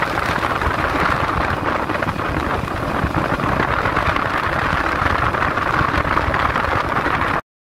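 Steady rush of wind and road noise from a BMW motorcycle riding along, heard through a bike-mounted camera's microphone, with engine rumble underneath. It cuts off abruptly near the end.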